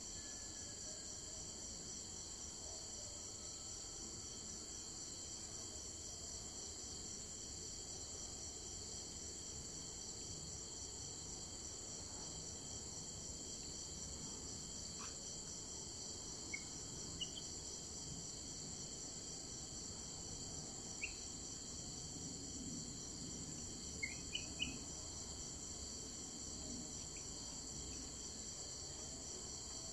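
A steady, high-pitched chorus of insects trilling without a break. A few short, sharp chirps stand out over it, mostly in the second half.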